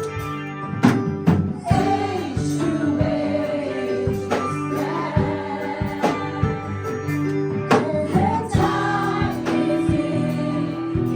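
Live praise-and-worship band playing while singers carry the melody together, with held chords, a bass line and regular drum hits underneath.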